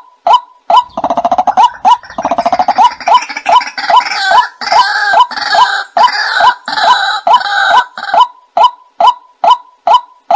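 White-breasted waterhen calls played as a bird-lure recording: short 'kwak' notes repeated evenly about two a second. About a second in they are joined by a fast rattling call, then a louder chorus of higher calls that dies away about eight seconds in.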